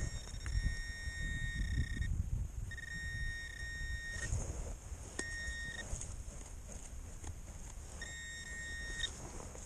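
Handheld metal-detecting pinpointer sounding a steady high tone in four spells, the first about two seconds long, then one and a half, a brief one, and about a second near the end, as it is probed into the dug hole: it has found a metal target in the soil. Soil and grass rustle under hand and glove between the tones.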